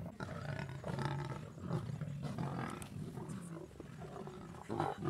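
A pride of lions growling and snarling as they fight over a carcass: a low continuous rumble with repeated harsh snarls, loudest about a second in and again near the end.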